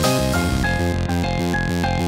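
Background music: a mellow electronic track with repeating keyboard notes over a steady bass line.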